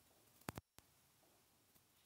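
Near silence: faint room tone, broken about half a second in by two short, sharp clicks close together.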